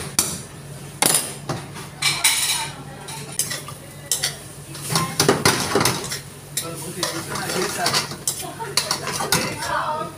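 Metal spoon scraping and clanking against a wok as food is stir-fried over a high gas flame, with sizzling. The sharp knocks and scrapes come irregularly, over a steady low hum.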